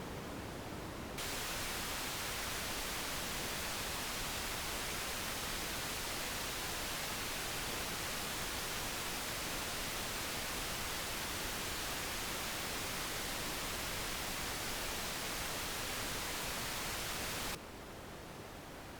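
Amplified electrical noise of a known-good NPN bipolar transistor, played as a steady hiss with no popcorn (burst) pops. About a second in it switches to a louder, brighter hiss, and near the end it drops back to a duller, quieter hiss.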